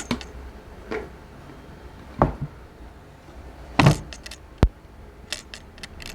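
Chiropractic manual adjustment of the upper neck at C2–C3: a series of short thuds and sharp clicks as the cervical spine is manipulated, the loudest just under four seconds in, followed by a crisp single click and a few fainter clicks near the end.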